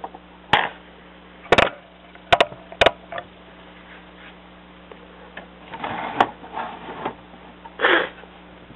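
Handling noise from a plastic LEGO model: four sharp clicks and knocks in the first three seconds, then softer scraping knocks near the end, over a faint steady mains hum.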